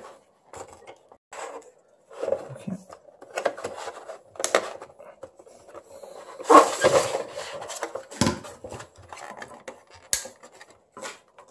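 Hard plastic parts of a toy bingo lotto set being handled and pushed together: irregular clicks, taps and knocks of plastic on plastic, with a few louder knocks past the middle, as the wire-style ball cage and crank are fitted onto the stand.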